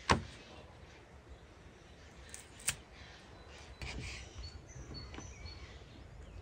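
A few sharp knocks, the loudest right at the start and another about two and a half seconds in, with faint short bird chirps near the middle.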